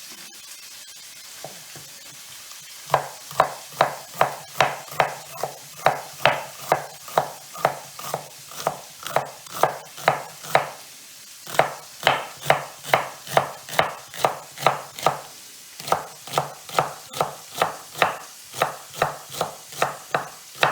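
Kitchen knife chopping fennel finely on a cutting board: quick, even strokes, about two or three a second, starting a few seconds in with a couple of brief pauses. A faint steady sizzle from a frying pan runs underneath.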